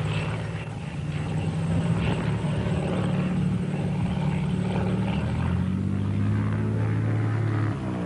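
Single-engine light aircraft's piston engine and propeller running as it taxis, a steady drone that shifts slightly in pitch about two-thirds of the way through.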